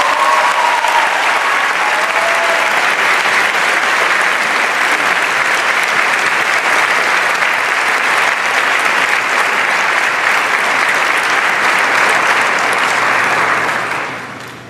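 Theatre audience applauding steadily, dying away near the end.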